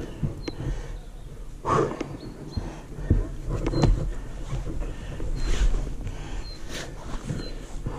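A dirt-bike rider's heavy breathing while straining to push and lift a fallen bike, in irregular gasping surges. Scuffs and sharp knocks from the bike and boots come a few times.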